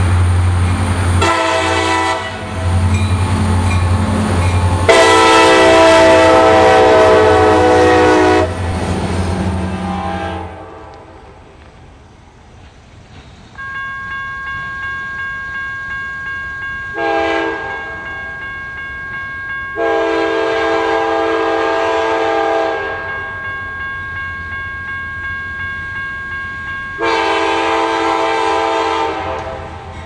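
Diesel locomotive air horns blowing chords: first a short blast, then one long blast of about three seconds over the low rumble of a freight train. After a cut, a second approaching locomotive gives a short blast and then two long blasts, with a bell ringing steadily between them.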